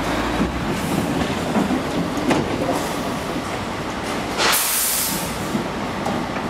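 Cattle lorry reversing slowly with its diesel engine running and the livestock trailer rattling and clunking. About four and a half seconds in there is a short, loud hiss of air as the air brakes set and the lorry stops.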